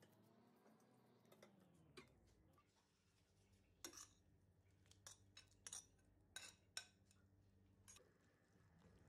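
Faint clinks and taps of dishware and a utensil against a stainless steel soup pot: about eight short, sharp clicks, most of them in the middle of the stretch.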